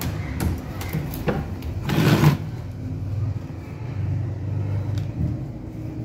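Handling noises at the back of a front-load washing machine: a few light clicks and a short, louder scrape about two seconds in, over a low steady hum.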